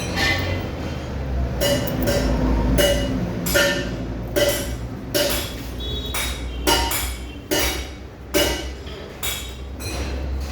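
Hammer striking metal in a steady rhythm, a little more than one ringing blow a second, over a steady low hum.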